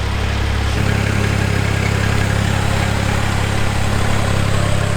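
Pressure washing rig's engine running steadily with a loud, even drone; its hum steps up slightly about a second in.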